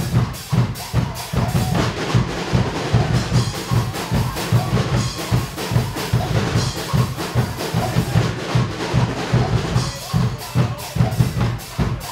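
Swiss Guggenmusik carnival band's drum section playing a loud, fast, driving rhythm on bass drums and snares, with rolls, in a dense steady beat.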